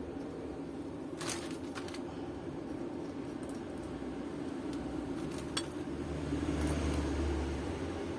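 A few faint metallic clinks, about three, of small bolts and tools being handled, over a steady low hum.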